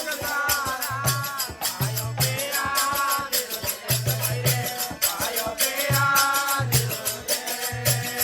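Rajasthani desi bhajan music, a melody line over a steady beat of low drum strokes and continuous jingling, rattling percussion.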